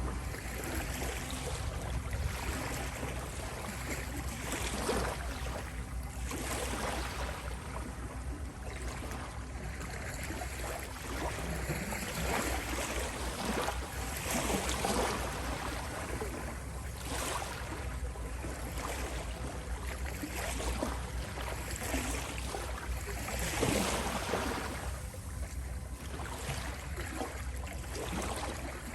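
Ocean waves washing ashore, swelling and breaking in irregular surges every few seconds over a steady low rumble of surf.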